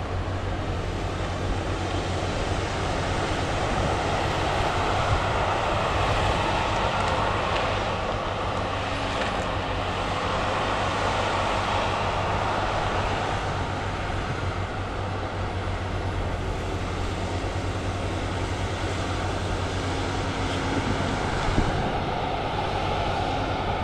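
Diesel engine and hydraulics of a Cat 568 shovel logger running steadily under a constant low hum, swelling a little in loudness for a few seconds early on and then settling.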